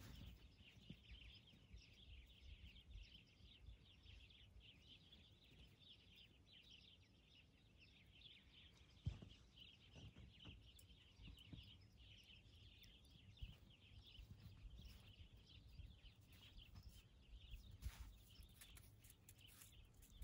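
Faint, continuous chirping of many small birds, over a low rumble, with a couple of soft knocks about nine seconds in and near the end.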